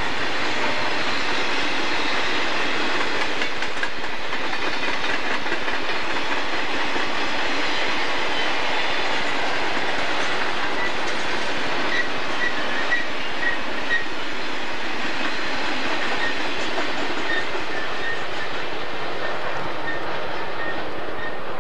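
Freight cars of a long Santa Fe freight train rolling past, a steady clatter of steel wheels on the rails. A run of short, high-pitched squeaks comes in about halfway through.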